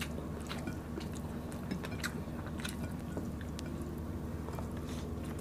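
Close-miked chewing and soft, wet mouth clicks of people eating a banana-blossom salad and fried milkfish by hand, over a steady low hum.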